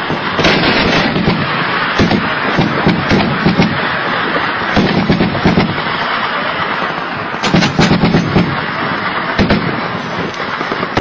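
Heavy, continuous gunfire: many shots overlapping in a dense crackle, with louder reports every second or two.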